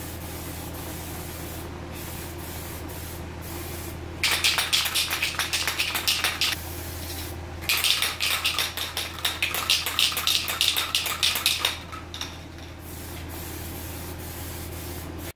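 Aerosol can of satin black trim and bumper paint spraying in two spells of quick, pulsing hisses: a shorter one about four seconds in and a longer one in the middle. A steady low hum runs underneath.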